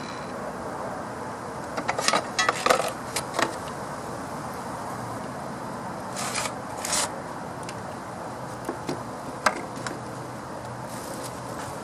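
Scattered sharp clicks and scrapes of metal and plastic as a car battery's terminal clamp and cable are handled during disconnection. They come in a few short clusters over a steady background hiss.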